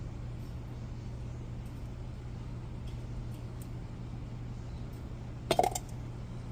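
A steady low hum, with a brief cluster of metallic clinks about five and a half seconds in, as a brake pad or tool is handled during the pad work.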